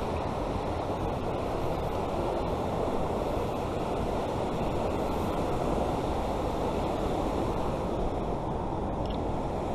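Steady rushing of flowing creek water, an even noise that holds level throughout.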